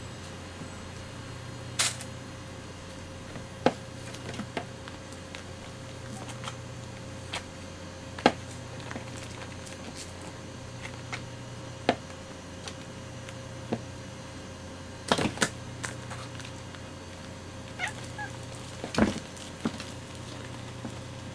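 A kitten and an adult cat wrestling: scattered sharp clicks and knocks of paws on a fabric bag and a wooden floor, busiest about 15 and 19 seconds in, with a few short meows.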